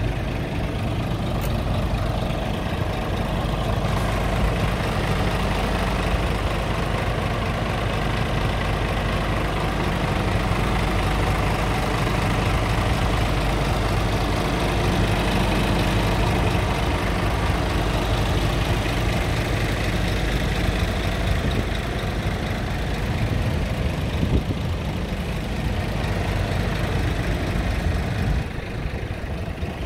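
Diesel engine of a 2018 Scania R tractor unit idling steadily.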